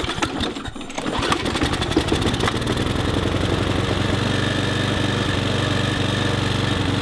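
Mountfield petrol lawn mower engine catching after a pull-start: uneven firing for the first second or two, then it settles into running steadily, a little slow and lumpy.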